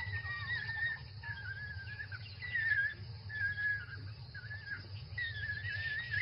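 African wild dogs giving a string of high, wavering whining calls while feeding at a kill, over a low steady rumble.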